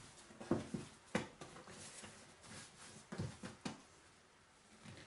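Plastic dough scraper cutting through soft bread dough and knocking on the countertop: a few short knocks, the clearest about half a second and a second in, two more around three seconds in.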